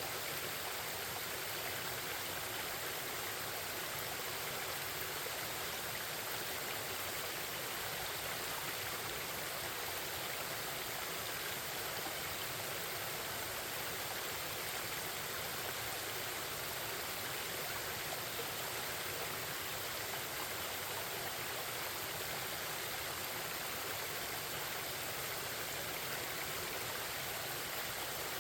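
Forest stream babbling steadily, an even rush of running water with no change in level.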